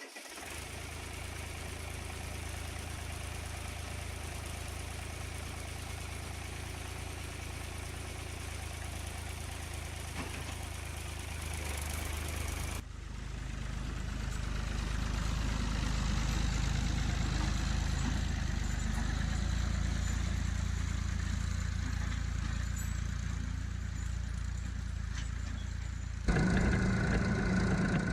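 Ford 4500 tractor-loader-backhoe engine idling steadily, its sound shifting abruptly in level and tone twice, about 13 s and 26 s in.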